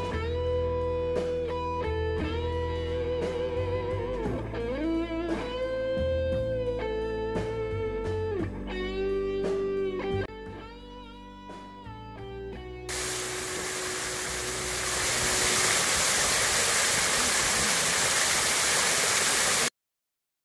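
Background music led by an electric guitar with bending, sliding notes. About two-thirds of the way through it gives way to a loud, steady rushing noise, which cuts off suddenly near the end.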